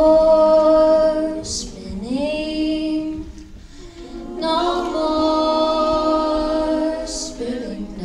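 Women's voices singing a cappella: two long phrases, each sliding up into a held note, with a short pause between them.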